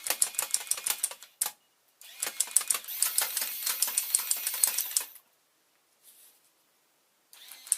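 Battery-powered rubber band machine gun firing on full auto: its motor-driven mechanism releases bands in a rapid run of sharp clicks. It fires in bursts: a short one, a single click, a longer burst of about three seconds, then a new burst starting near the end.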